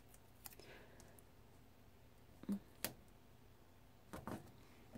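Near silence with a few soft ticks and taps of stickers and paper being handled and pressed onto a planner page.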